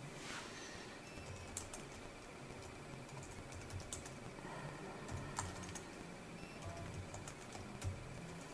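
Computer keyboard typing: faint, irregular key clicks as a short command is typed.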